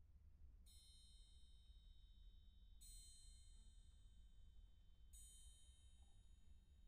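Orchestral triangle struck softly three times, about two seconds apart, each stroke ringing on and fading, over a faint low rumble.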